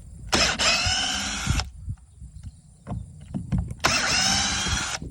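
Cordless drill with a square-drive bit backing screws out of a door hinge: two runs of a little over a second each, the motor whine rising slightly as it spins up. Small clicks and knocks between the runs.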